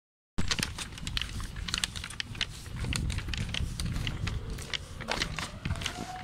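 Handling noise from a phone carried on a walk: irregular clicking and rubbing over a low rumble of wind and movement on the microphone. A faint rising whine starts near the end.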